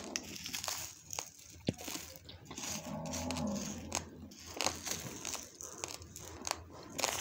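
Dry raw basmati rice crunching and rustling, with many small sharp cracks, as the grains are chewed and stirred with a plastic scoop in a steel bowl.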